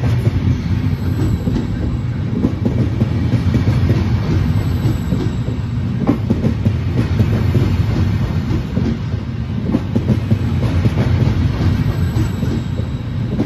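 Double-deck regional electric train rolling slowly along the platform: a steady rumble of wheels on rail with clicks as the wheels cross rail joints, and a faint high squeal now and then.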